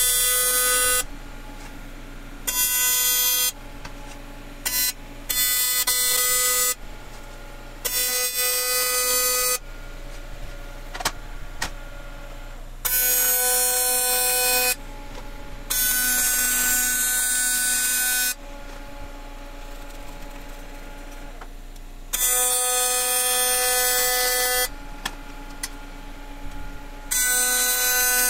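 AC TIG welding arc from a Miller Dynasty 400 on aluminium, buzzing loudly in on-off runs of one to three seconds, about nine times, as bead after bead is laid. A lower steady hum carries on between the runs.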